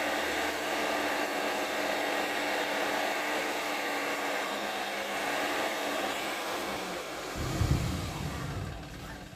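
Light dump truck's engine revved to drive the hydraulic hoist as the bed tips up, a loud steady whirr. About seven and a half seconds in comes a brief deep rumble, then the level drops.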